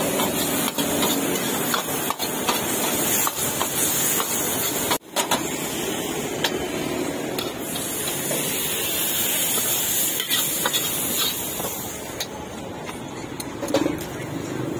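Food sizzling in a hot pan, a steady hiss, with metal utensils clinking and scraping as it is stirred.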